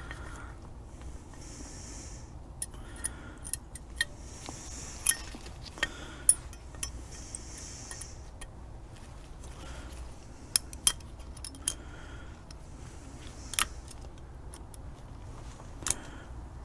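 Sharp metallic clicks and clinks at irregular intervals as new brake pads and their metal shims are handled and fitted together.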